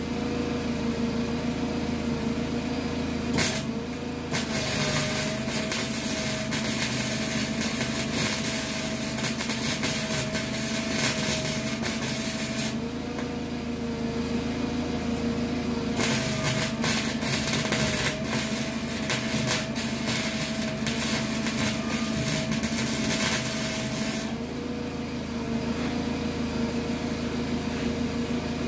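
Small 120-volt wire-feed welder arcing: a short blip about three seconds in, then two long runs of steady crackling of roughly eight seconds each. A steady hum runs underneath and rises in pitch while the arc is on.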